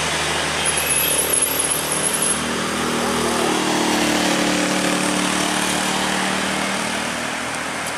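Traffic going by close at hand: a self-loader truck's diesel engine running, mixed with motorcycles and a car passing. The engine note rises and shifts about halfway through.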